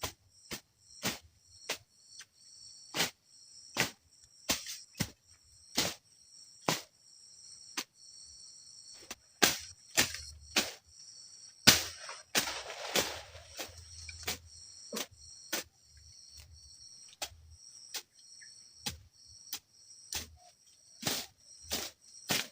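Steady high-pitched chorus of forest insects, with repeated sharp knocks coming irregularly about once or twice a second, and a brief rustle about halfway through.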